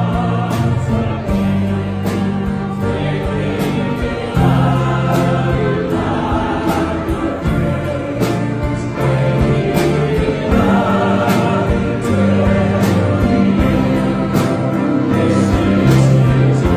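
Gospel song sung by a group of voices over a live church band, with trumpet and guitar over a steady beat.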